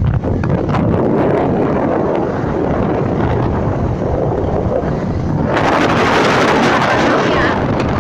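Wind rushing over the microphone of a phone on a moving motorcycle: a loud, steady rush that turns harsher and hissier about five and a half seconds in.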